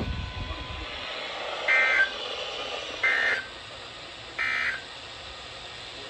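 Three short screeching digital data bursts, about a third of a second each and evenly spaced, from a NOAA Weather Radio broadcast over a faint radio hiss. They are the SAME end-of-message code that closes the severe thunderstorm warning.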